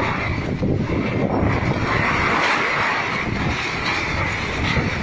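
Strong storm wind blowing hard, with steady rumbling wind noise on the microphone.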